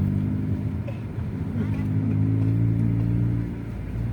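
A motor vehicle's engine running with a steady low hum. It grows louder about one and a half seconds in and eases off near the end.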